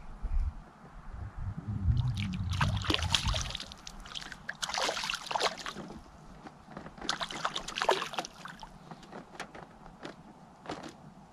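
Water splashing and sloshing in three short bursts, with clicks and knocks, beside a small fishing boat. A low rumble runs through the first few seconds.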